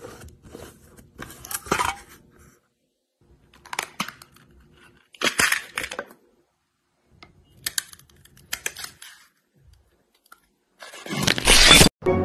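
Plastic screw lid of a Nutella jar being twisted off, then small hard candies inside shifting and rattling. The sounds come as several short bursts of clicking and rustling with quiet gaps between them, the loudest near the end.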